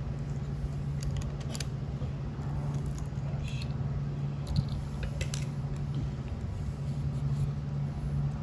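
Scattered light clicks and scrapes of a screwdriver and small metal parts being worked on a Craftsman WS210 string trimmer's carburetor, over a steady low hum, with one sharper tap about four and a half seconds in.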